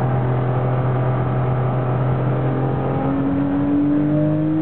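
Porsche 996 GT3 RS race car's flat-six engine heard from inside the cabin, holding a steady note and then rising in pitch as the car accelerates, from about halfway through.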